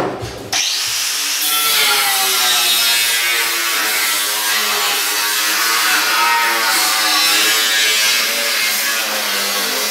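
Angle grinder starting about half a second in and cutting through steel truck sheet metal. Its motor pitch wavers as the disc bites into the metal.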